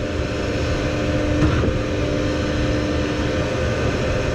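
Concrete pump truck's diesel engine running steadily at pumping speed, with a constant hum over a low rumble.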